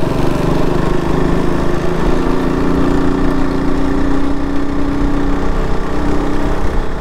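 Sport motorcycle's engine running as the bike is ridden slowly along a street, a steady drone whose note holds level for a few seconds in the middle.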